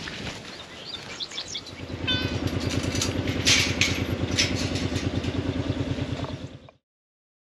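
A side-by-side UTV's engine running steadily at idle from about two seconds in, with a couple of short clatters over it, before the sound cuts off suddenly near the end.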